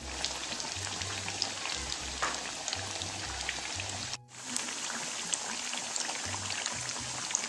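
Hot oil sizzling steadily with small pops as batter-coated pinwheel rolls deep-fry in a pan on a low flame; the sound drops out for a moment about four seconds in.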